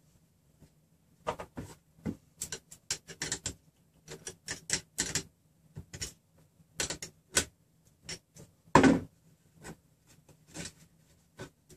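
Irregular metal clicks and taps of nuts being turned by hand and with a wrench on the steel threaded rods of a RepRap Prusa Mendel 3D-printer frame, as the frame is tightened. One louder clatter comes about nine seconds in.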